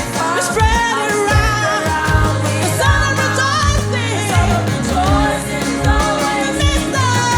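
Upbeat worship song: a singing voice with vibrato over a bass line and a steady drum beat.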